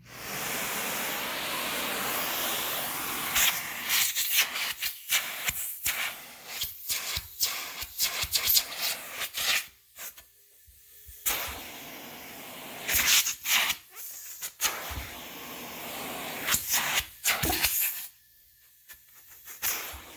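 Central vacuum suction, a rushing of air that starts suddenly, broken by many irregular knocks and rubbing sounds with brief drop-outs.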